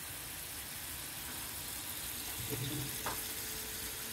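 Steady sizzle of food frying on the stove: sliced mushrooms sautéing in one pan and hamburger patties browning in a cast-iron skillet, with a light click about three seconds in.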